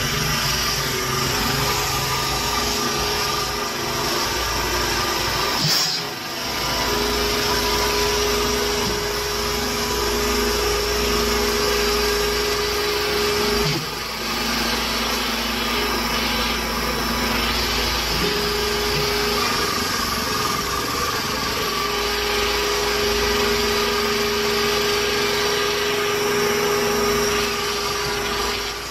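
Hydraulic firewood processor running: a steady engine and hydraulic-pump drone with a whine that comes and goes as the ram pushes logs through the splitting grid, broken briefly twice.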